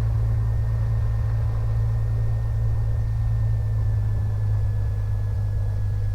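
1969 Cessna 182M's six-cylinder Continental O-470 engine and propeller running steadily at low taxi power, about 1,000 RPM. A thin steady whine above it drifts slightly lower.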